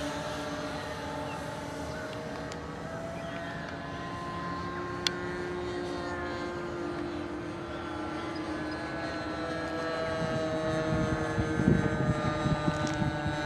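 Electric motors and propellers of a large four-engine model Hercules (C-130) whining steadily, the pitch slowly sliding up and down with throttle. A sharp click about five seconds in, and rough low rumbling noise near the end.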